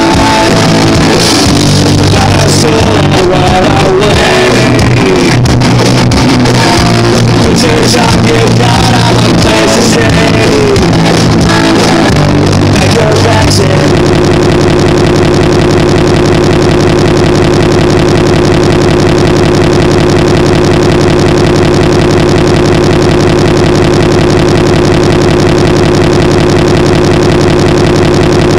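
Loud live pop-punk band playing, with a singer's voice over guitars. About halfway through it cuts off suddenly into a steady, unchanging buzzing drone, a glitch in the recording.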